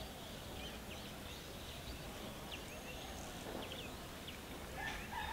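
Quiet outdoor ambience with scattered short, high chirps from small animals, and a longer pitched call with a few steady tones near the end.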